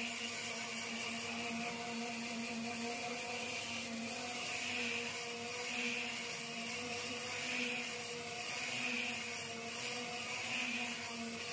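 Random orbital sander running steadily while sanding body filler on a car fender: a constant motor hum with a higher sanding hiss that swells and fades every second or two as the pad moves over the panel.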